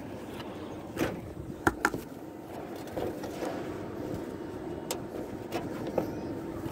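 Steady low vehicle hum, with several short sharp clicks through it.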